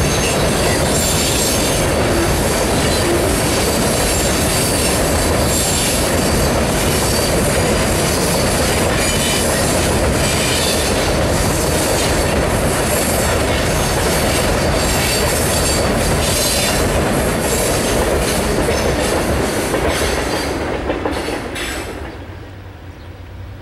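Freight cars rolling across a steel girder railroad bridge: a steady, loud rolling noise of steel wheels on the rails with high screeching, fading away near the end.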